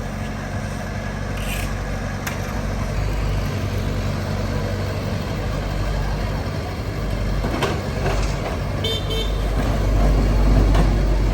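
Heavy-equipment diesel engine running steadily, getting a little louder toward the end, with a few sharp knocks and a brief high-pitched beep about nine seconds in.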